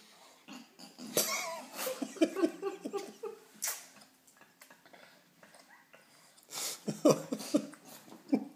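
A baby grunting and making short vocal noises with breathy, snuffling sounds while eating noodles face-first from a plate, in two bursts: one starting about a second in, and a second near the end.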